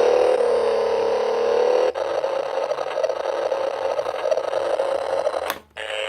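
Plastic toy engine's electronic engine sound effect playing through its small speaker. The sound changes about two seconds in, stops briefly with a click near the end, then sounds again for a moment.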